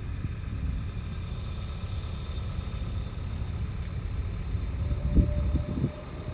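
Steady low rumble and faint whine of the Gulfstream G650's twin Rolls-Royce BR725 turbofans as the jet rolls out after touchdown. Wind buffets the microphone in gusts near the end.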